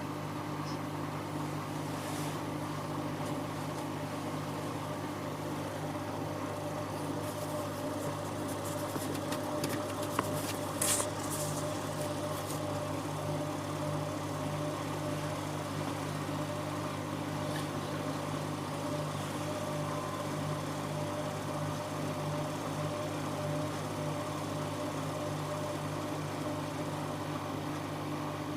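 Siemens Siwamat 7163 washing machine running with a steady motor hum. A few light clicks and rattles come about ten seconds in.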